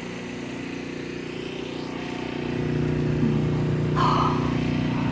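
A vehicle engine running steadily nearby, getting louder about two and a half seconds in, with a short burst of noise about four seconds in.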